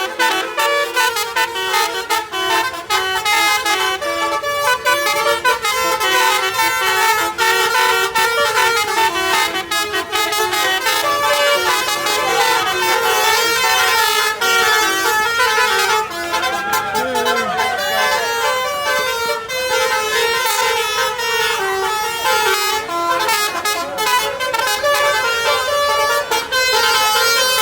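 Basuri melody horn on a bus playing a tune: a long run of loud horn notes stepping from pitch to pitch with short breaks between phrases.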